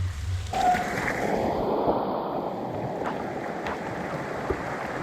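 Steady rushing of running water, starting abruptly about half a second in with a brief squeak at the onset.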